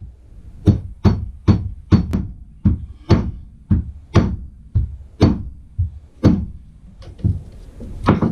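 A rubber mallet striking a PVC pipe again and again, driving a new fork seal into a 35mm fork slider. The blows come at about two a second, each a dull thud with a short ring.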